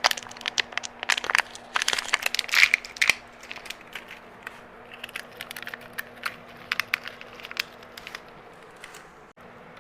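Plastic packaging crinkling and small hard parts clicking as hands rummage through PC-build hardware for screws; the clicks come thick for the first three seconds, then scattered, over a faint steady hum.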